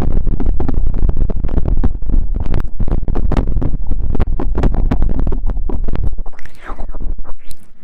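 Close-microphone ASMR rustling and scratching: a dense, loud crackle with heavy low rumble, thinning out about six seconds in.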